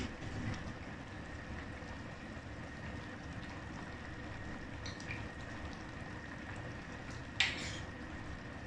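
Fish stew simmering in a wok with a steady, soft bubbling hiss, while a metal ladle stirs the noodles in the broth. A sharp clink of the ladle against the wok comes near the end.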